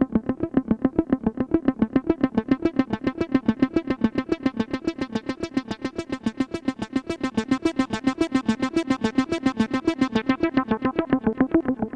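Sequential Prophet X synthesizer playing a rapid, evenly repeating sequence of short plucked notes. Its tone gets steadily brighter until about eight or nine seconds in, then turns duller again.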